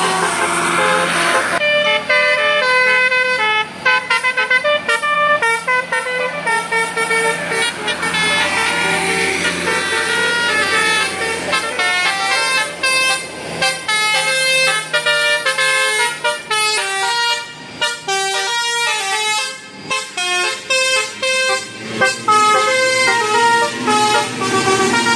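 Tour bus's multi-tone basuri telolet horn playing a fast melody of short tooting notes that jump from pitch to pitch, over a low steady hum that stops about 16 seconds in.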